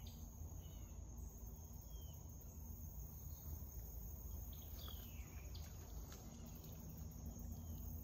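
Steady high-pitched drone of insects, with a few short falling bird calls and a constant low rumble underneath.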